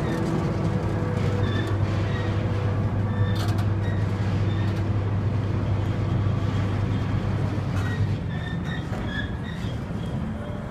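Steady low machinery drone that drops away about eight seconds in, with faint short high squeaks over it.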